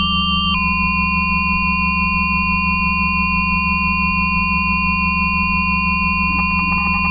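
Dexed FM software synthesizer sounding a sustained electronic drone: several steady held tones over a low hum. The upper tones step to a new pitch about half a second in, and about six seconds in a rapid flutter of quickly changing tones starts.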